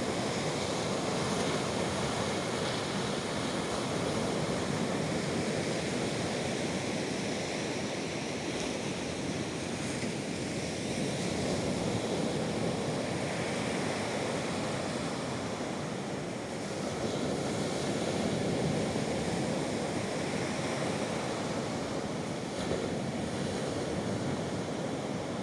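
Baltic Sea waves breaking continuously on the shore, a steady rush of surf that swells and eases a little, with a brief lull about sixteen seconds in.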